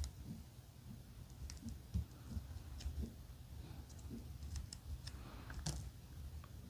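Faint handling noises: scattered small clicks and light rustling as a new flashlight and its packaging are handled.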